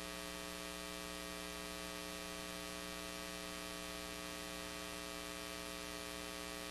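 Steady electrical mains hum with a layer of hiss: a constant buzz made of many evenly spaced tones, holding level without change.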